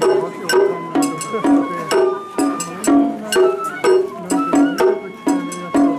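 Japanese festival hayashi music: a bamboo flute playing held notes over drums and sharp percussion strokes keeping a steady beat of about two strokes a second.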